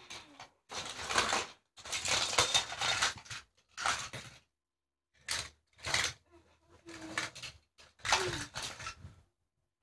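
A child making crash and smash noises with the mouth, a run of about eight short hissing bursts, some with brief voiced cries, acting out a toy-car pile-up.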